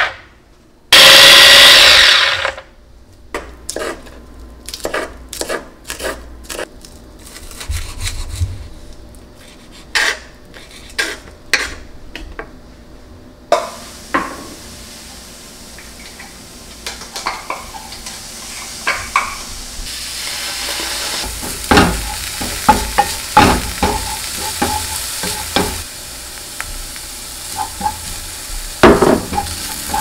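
An electric mini chopper runs in one short, loud burst about a second in. A string of clicks and knocks follows. From about halfway, chopped vegetables sizzle in a frying pan while a wooden spatula stirs and scrapes.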